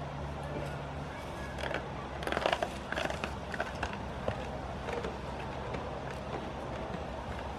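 Goats crunching treats: a cluster of crisp crunches and clicks, densest about two to four seconds in, over a steady low hum.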